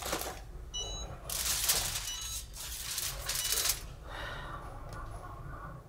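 Aluminium foil crinkling as it is crumpled and folded by hand, in two loud spells of about a second each, then quieter.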